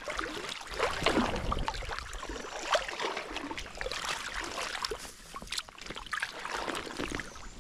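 Water splashing and sloshing in irregular bursts around a landing net held in a creek, with a large brown trout moving in the net.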